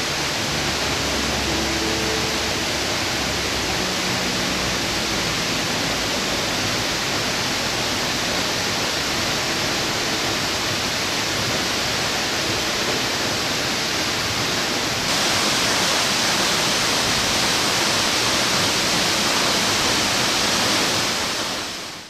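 Steady rush of water from a 40 m waterfall and the rocky mountain stream below it. It gets louder about two-thirds of the way through and fades out at the end, and faint music trails off in the first few seconds.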